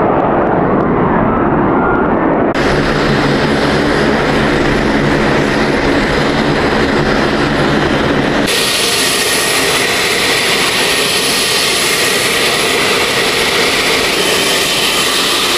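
Four turboprop engines and propellers of a KC-130J Hercules tanker running on the ground: a loud, steady drone. Its tone changes abruptly twice, about two and a half and eight and a half seconds in, the second time to a brighter, hissier sound.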